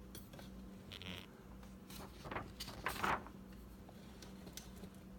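Faint handling noise: a few brief scrapes and rustles, about a second, two and three seconds in, as a sheet of typed paper is moved and handled.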